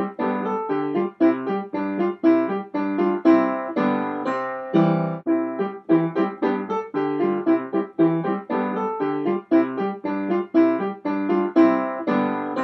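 Background music: a piano or electric keyboard playing a steady run of notes, several a second.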